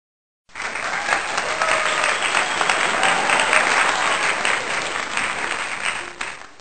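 Crowd applauding: dense clapping that starts abruptly about half a second in and cuts off suddenly at the end.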